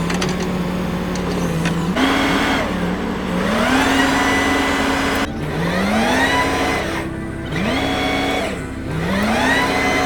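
Excavator's diesel engine running and revving up again and again, each rise climbing in pitch, holding for a moment, then dropping back, over a steady low rumble.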